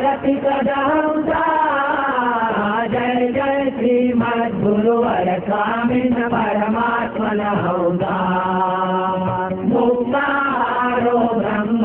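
Devotional Hindu chant sung slowly, the melody gliding from note to note, with one long held note about eight seconds in.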